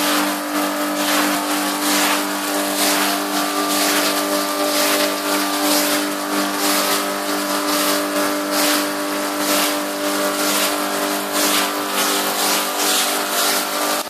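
Stiff-bristled broom scrubbing shampoo foam into a wet part-silk rug in repeated strokes, about one to two a second, over the steady hum of a machine motor.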